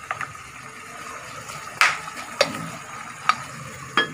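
Chicken simmering in coconut milk in a pot on a gas stove, a steady hiss broken by sharp clinks against the pot, the loudest about two seconds in. Near the end the glass lid is set on the pot with a clink.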